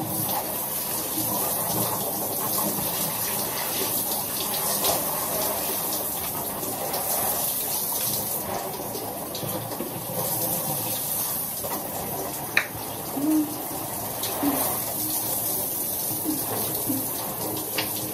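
Shower water spraying steadily onto a person and the tub. About two-thirds through there is a single sharp tap, followed by a few brief low hums.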